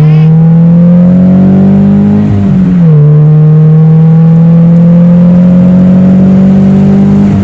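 Scion FR-S's 2.0-litre flat-four boxer engine pulling under acceleration, very loud. Its pitch climbs slowly, drops sharply about two and a half seconds in as it shifts up a gear, then climbs again and drops at another shift near the end.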